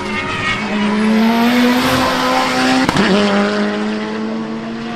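Turbocharged four-cylinder time attack race car engine pulling hard, its note climbing steadily. Just before three seconds in, the sequential gearbox upshifts with a sharp crack, and the note drops and holds steady.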